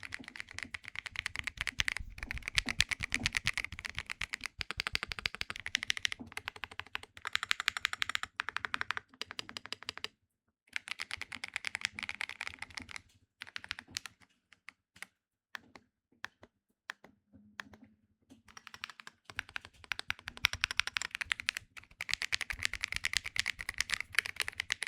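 Fast typing on a Keychron Q6 HE keyboard with magnetic Hall-effect linear switches: long runs of rapid keystrokes, a short break about ten seconds in, then a few seconds of scattered single key presses before fast typing resumes.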